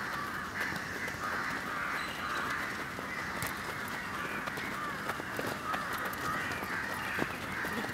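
A chorus of birds calling continuously and harshly, with a couple of sharp thuds of a football being kicked.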